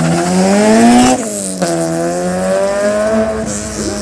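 Honda Integra race car's four-cylinder engine revving hard as it launches from the start. The pitch climbs, drops sharply at an upshift about a second in, climbs again through the next gear, and drops once more near the end.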